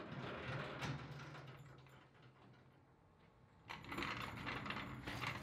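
Metal clatter and scraping as a floor jack is worked under a pickup to lower the gas tank out from under the bed, in two bouts with a quieter stretch between.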